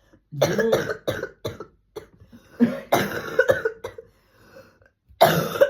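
A person coughing on purpose in several fits, each a run of short coughs with brief pauses between them. This is their habitual way of coughing, confirmed right afterwards as exactly how they cough.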